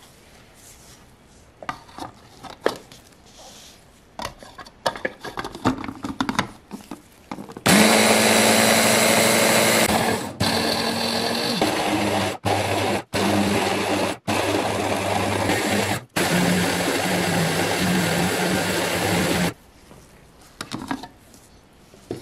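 Electric mini food chopper grinding hazelnuts and powdered sugar toward a paste. Its motor runs loud and steady for about twelve seconds with several brief stops, after a few seconds of clicks and knocks as the bowl and lid are handled.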